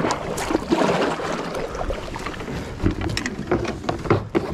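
Water splashing and sloshing beside a plastic kayak as a hooked bass is brought alongside, followed by several short knocks and clicks of gear against the hull in the second half.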